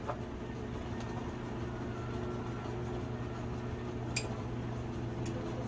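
A single sharp clink of a metal utensil against a small ceramic bowl about four seconds in, with a fainter tap about a second later, over a steady low hum.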